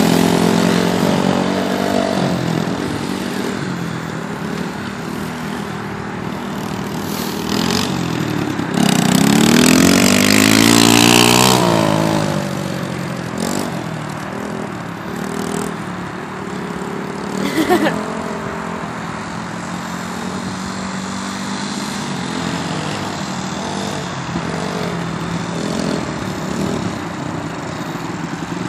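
Small youth dirt bike engines running and revving, their pitch rising and falling as the bikes ride around. Loudest as a bike revs and sweeps past close by about nine to twelve seconds in, with a short sharp noise near eighteen seconds.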